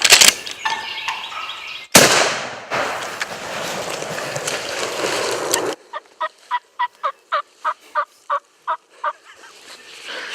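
Turkey yelping: a series of about a dozen evenly spaced yelps, about four a second, in the second half. Before it, a sharp loud crack about two seconds in is followed by several seconds of rushing noise that stops abruptly.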